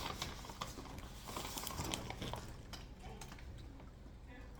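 Crunching from chewing hard cinnamon sugar pretzel twists: irregular crisp crackles, dense at first and thinning to scattered clicks in the second half.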